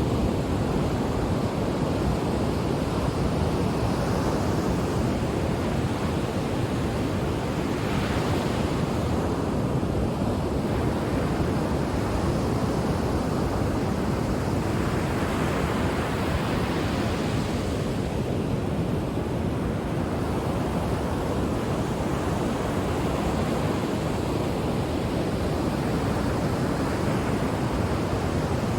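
Ocean waves breaking and washing on the shore: a continuous rushing surf that swells every few seconds, with a little wind on the microphone.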